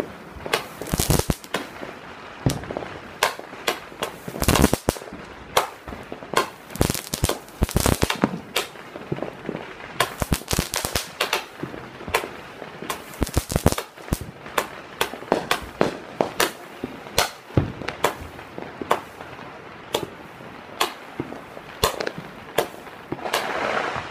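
Air Defense 100-shot fireworks cake firing its tubes one after another: sharp bangs and pops in quick, irregular succession, often several a second.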